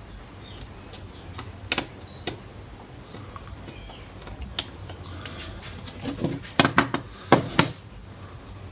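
Scattered small clicks and taps of a precision screwdriver against the plastic housing of a Samsung Galaxy phone while its side screws are taken out, a few at first and a quicker run of clicks near the end.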